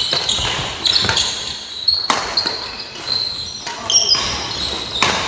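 Badminton rally: sharp racket strikes on the shuttlecock about once a second, with high squeaks of shoes on the wooden court floor between them.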